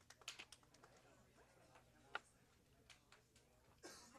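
Near silence with faint, scattered clicks and taps, one sharper tap about two seconds in and a brief rustle near the end.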